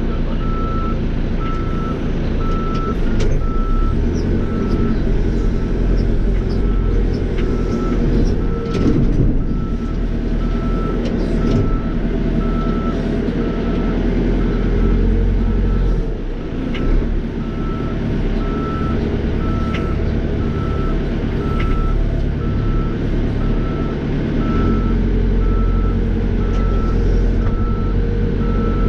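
Cat 430E backhoe loader's diesel engine running under load, heard from inside the cab, with a reversing alarm beeping evenly about once a second.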